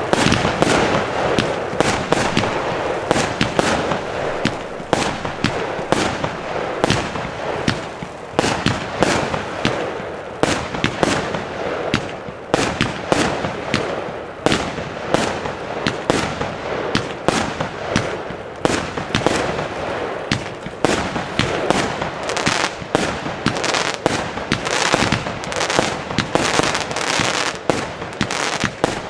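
Mastermind consumer firework compound firing: shots launching and bursting overhead in quick succession, a few a second, without a break.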